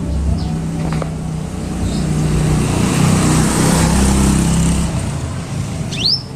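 A motor vehicle passing, its engine hum and road noise swelling through the middle and fading again, with a bird's short rising chirp near the end.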